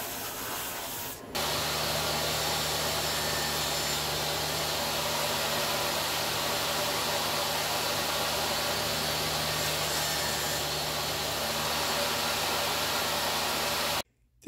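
Laguna SuperMax drum sander running with a hissing sanding noise as teak blocks feed through. About a second in it gives way to a table saw running steadily with a low motor hum, which cuts off abruptly near the end.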